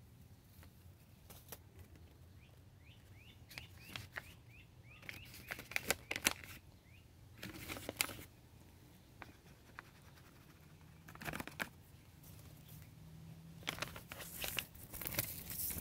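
Paper seed packets rustling and crinkling in short spells as they are handled, with a few quick bird chirps a few seconds in.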